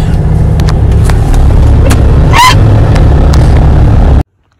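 Loud, steady low rumble of wind buffeting the phone microphone as it moves, with some handling clicks and a short vocal yelp about halfway through. It cuts off suddenly near the end.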